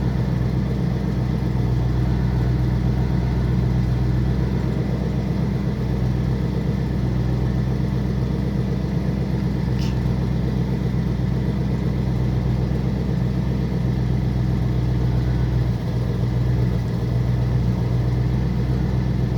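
Small-block Chevy V8 idling steadily, with one short high tick about halfway through.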